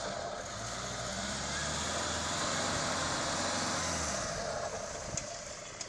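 Nissan Navara pickup's engine held under steady throttle as the truck pushes through deep mud, over a steady hiss. The engine note falls away about four seconds in.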